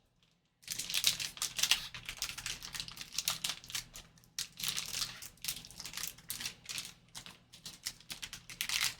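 A pack of trading cards being opened and handled: a dense run of crinkling, rustling and light clicks as the wrapper comes off and the cards are slid through by hand.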